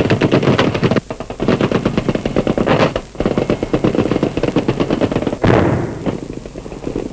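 Sustained automatic machine-gun fire in rapid, long bursts, pausing briefly about one second in and three seconds in. A sudden heavier blast comes about five and a half seconds in, after which the firing is quieter.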